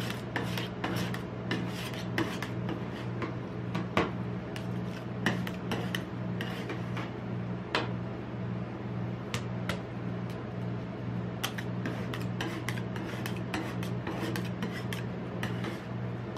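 Metal spatulas scraping and chopping ice cream mixture on a stainless steel cold plate, with many sharp irregular clicks as the blades strike the steel. A steady low hum runs underneath.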